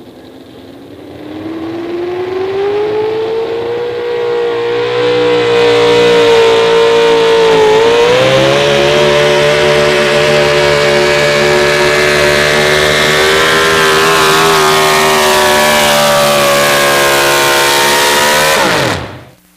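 Pro Stock 4x4 Chevrolet pulling truck's V8 at full throttle under load: revs climb over the first few seconds, dip briefly about eight seconds in, then hold high and steady until the throttle is cut near the end and the engine note falls away sharply.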